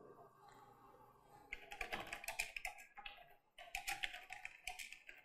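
Faint computer keyboard typing: after a second and a half of silence, short runs of quick key clicks in three groups as a name is typed in.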